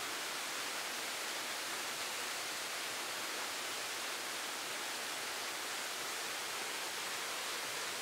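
Waterfall: water tumbling down in a steady, even hissing rush.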